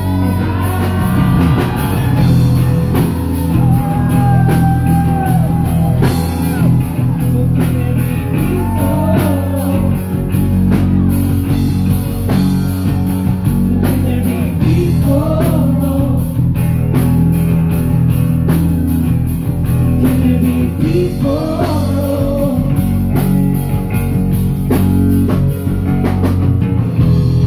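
Live band playing a rock song: a steady beat of drums and bass under guitar, with a melody line coming and going above it.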